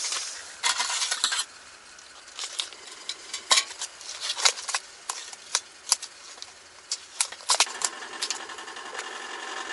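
A plastic vacuum pack of in-shell peanuts crinkling and crackling as it is torn open and handled, with sharp clicks and cracks as the peanut shells are broken by hand. A steady hum comes in near the end.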